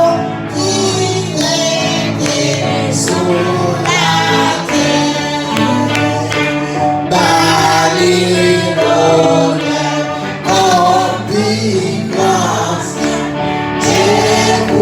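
Gospel worship music: a group of female and male voices singing together over a steady instrumental accompaniment.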